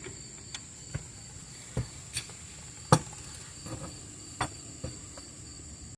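Irregular sharp clinks and knocks of hand tools and metal brake parts being handled and fitted, about eight in six seconds, the loudest about three seconds in. A steady high-pitched insect drone runs under them.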